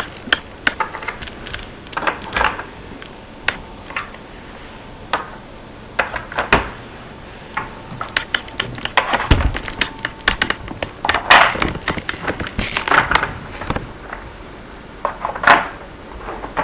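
Small test blocks of the Minnesota Spatial Relations Test clicking and clattering as they are picked up and set into the board one after another. The knocks are irregular, with a few quicker, louder clusters.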